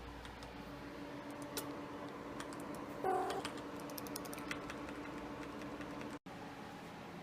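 Domestic cat giving one short, pitched call about three seconds in, over faint scattered clicks and a low steady hum.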